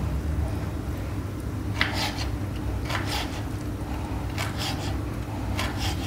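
Kitchen knife chopping blanched spinach on a wooden cutting board: irregular short strokes of the blade cutting through the wet leaves onto the board, about a second apart, over a steady low background hum.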